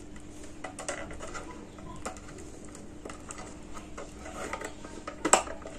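Small plastic clicks and handling noises as a 9-volt battery's snap connector is pressed on and the DT9205A multimeter is fitted together, with a sharper click about five seconds in. A faint steady hum underneath.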